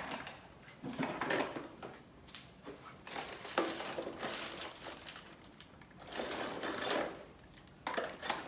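Metal bicycle tools being handled and set against the cassette, clinking and rattling in several short bursts with pauses between.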